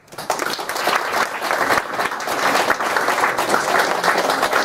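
Audience applauding: many people clapping at once, starting suddenly and keeping up at a steady level.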